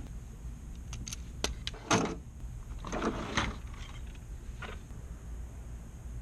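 Several sharp clicks, then a louder knock just before two seconds in, followed by short scraping or rustling noises, over a steady low hum.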